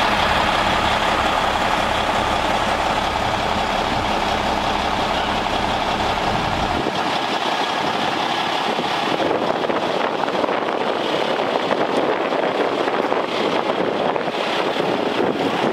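Diesel engine of a Peterbilt heavy wrecker idling close by, a steady low throb. About seven seconds in the low rumble drops out suddenly, leaving a noisy hiss.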